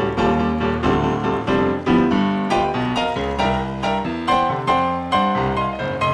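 Background piano music playing a melody of distinct notes, several a second.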